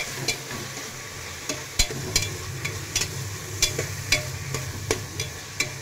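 A metal spatula stirs potatoes, peas and ground spices frying in oil in a pressure cooker, knocking and scraping against the pot in irregular sharp clicks, one or two a second. A steady sizzle runs underneath as the masala is fried on a high flame.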